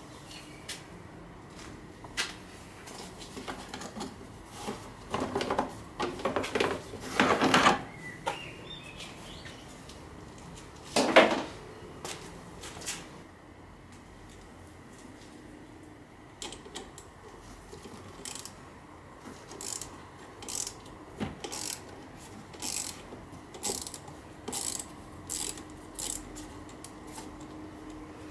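A plastic engine-bay cover being handled and lifted off, with scrapes, rattles and one loud clunk. Then a ratchet wrench clicking in a steady run of short strokes, a little under two a second, loosening the battery terminal clamp nut.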